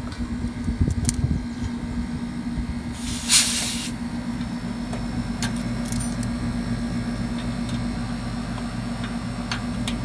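Air conditioner outdoor unit running with a steady hum. About three seconds in comes a short, loud hiss of R-22 refrigerant escaping as the charging hose is uncoupled from the service port, after a few clicks of handling the fittings.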